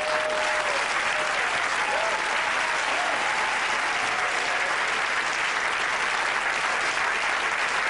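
Small theatre audience applauding steadily, with a few voices among the clapping.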